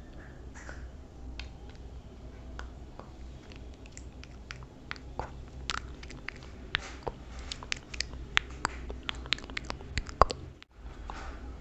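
Close-miked ASMR trigger sounds: a run of sharp, crisp clicks and crackles that grows denser and louder about halfway through, with the sharpest click near the end, over a steady low hum.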